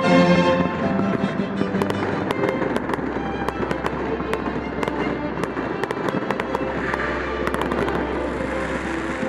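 Fireworks display crackling and popping: many rapid sharp cracks over a dense rushing noise, with music playing underneath.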